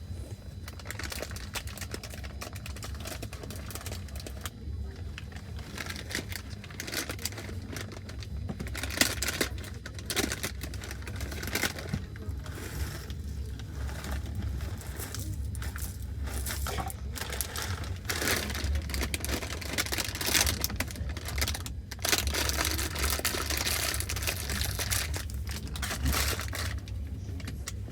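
Low, steady rumble of a moving passenger train, with irregular crinkling, rustling noise over it.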